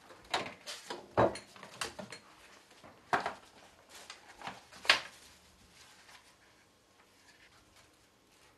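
Kitchen handling sounds: a small under-counter fridge shut and things knocked about on a worktop, a run of sharp knocks and clatters over the first five seconds, the loudest about a second in and near five seconds in, then faint handling.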